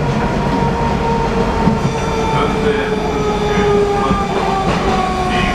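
Inside a moving 81-740 Rusich metro car: a steady rumble of wheels on rail under the electric whine of the traction motors, which slowly falls in pitch as the train slows.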